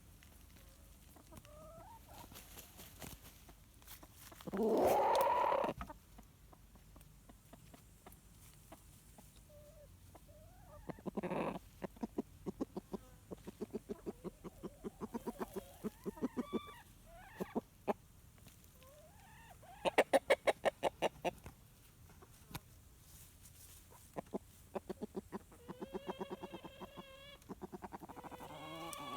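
Rooster calling: a loud startled squawk about five seconds in, then long runs of rapid low clucking, the comforting sound a rooster makes toward his hens, with a louder burst of clucks about twenty seconds in. Near the end, a chicken's wavering whine.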